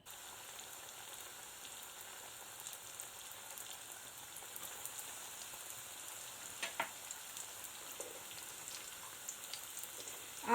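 Breadcrumb-coated chicken rolls deep-frying in hot oil: a steady sizzle with a few small pops.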